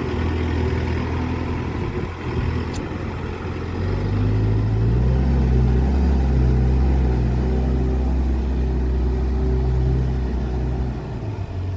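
Case 851EX backhoe loader's diesel engine running. About four seconds in it picks up revs and load and holds there, then eases off near the end.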